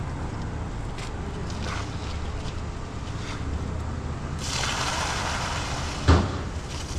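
Two-wheeled concrete cart being tipped on a roof slab: wet concrete slides out with a rushing hiss for about a second and a half, ending in a sharp thud. A steady low rumble runs underneath.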